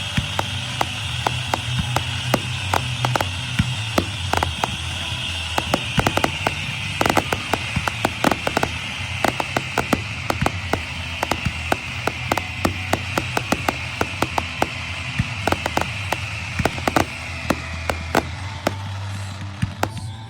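Fireworks display: aerial shells bursting in quick, irregular succession, dozens of sharp bangs, over a continuous high hiss that slowly falls in pitch and fades out near the end.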